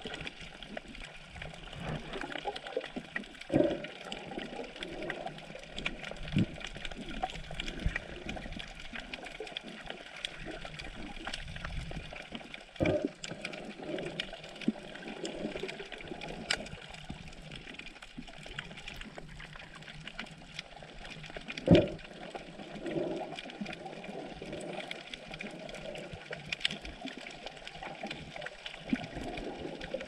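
Sea water heard underwater: a steady wash of noise with scattered faint clicks and crackles, and a few dull thumps, the loudest about 22 seconds in.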